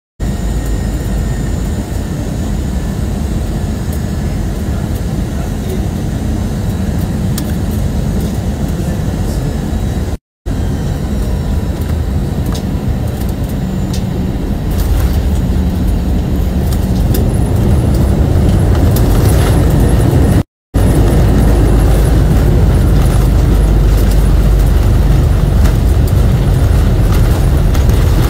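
Jet airliner cabin noise on landing, heard through the window seat: a steady engine and airflow roar with deep rumble, which grows louder in the second half as the aircraft rolls down the runway. The sound cuts out for a moment twice.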